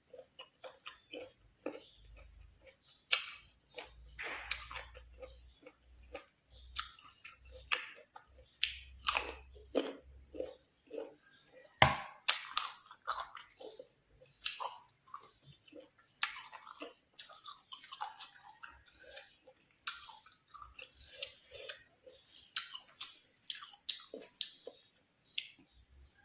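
Close-miked crunchy biting and chewing of crisp unripe green mango, a string of irregular wet crunches and mouth clicks with a few sharper bites.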